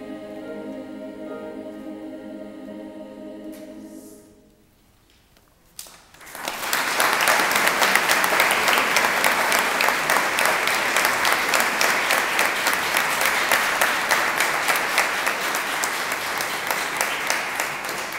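A women's choir holds its final chord, which fades out about four seconds in. After a brief hush, an audience breaks into loud applause that goes on for the rest of the time.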